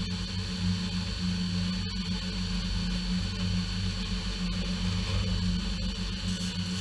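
Small horizontal/vertical bandsaw running steadily in horizontal mode, its motor humming with a steady high whine from the blade as it cuts through four pieces of 1/2-inch round stock clamped together.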